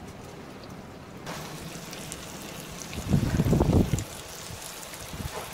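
Bacon and apple pieces sizzling in a camp pan over a small wood fire, with scattered small pops. About three seconds in, a louder low rumble lasts about a second.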